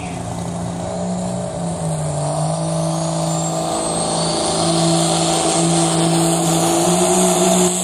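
Diesel pickup's engine at full throttle pulling a weighted sled, held at high revs with a high turbo whistle rising about two to four seconds in, growing louder as the truck comes down the track.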